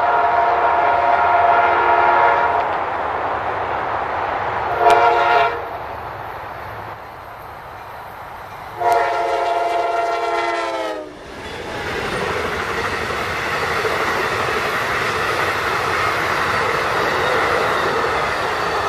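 Amtrak passenger train's GE P42 locomotive sounding its multi-chime air horn: a long blast, a short blast, then a long blast whose pitch drops as the locomotive passes. The train's wheels then rumble and clatter steadily on the rails as the coaches go by.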